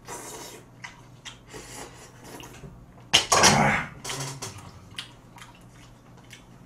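Eating sounds: a soft slurp of soup from a spoon and light clicks of chopsticks and spoon on dishes. About three seconds in comes a loud cough in two quick bursts, set off by the hot green chili in the stew.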